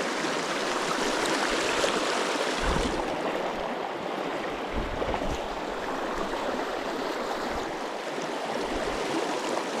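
A small river's current rushing and gurgling over rocks in a steady wash, with a few brief low rumbles of wind on the microphone.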